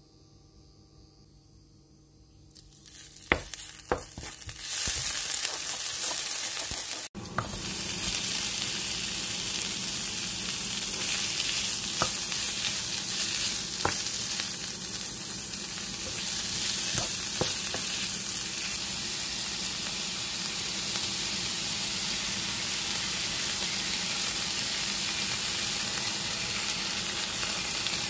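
Pork soft bones frying in a hot pan: a steady sizzle that starts about two and a half seconds in, with scattered sharp pops and crackles.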